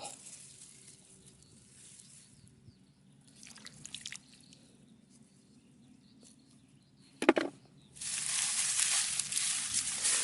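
Mostly quiet, then a short exclamation about seven seconds in. Near the end, a loud steady sloshing and splashing of muddy water starts suddenly.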